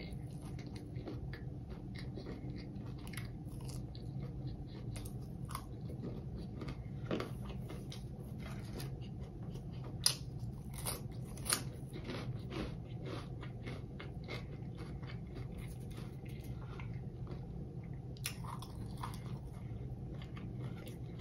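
Close-up chewing and crunching of crispy fried Hot Cheetos crust: many small crisp crackles, with two louder crunches near the middle.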